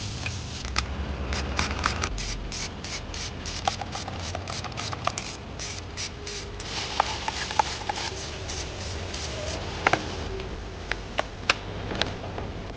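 Workshop handling noise: irregular clicks and scraping of tools or parts being worked, coming quickly for a few seconds at a time, over a steady low hum.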